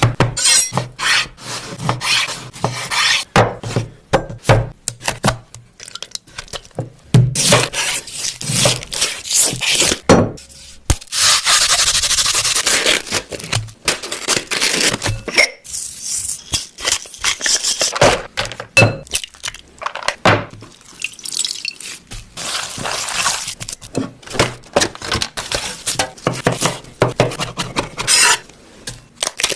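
Cooking sounds: utensils and cookware knocking, clattering and scraping, with a few seconds of steady hiss near the middle.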